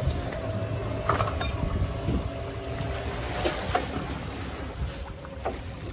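A boat motor runs steadily with water sloshing and splashing alongside as a wire crab trap is hauled up out of the water by its line. A few sharp knocks and splashes break in.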